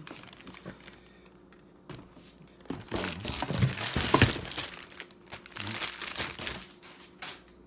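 Packaging crinkling and rustling as it is handled, with a few light knocks; the crinkling gets loud about three seconds in and dies down after about two seconds.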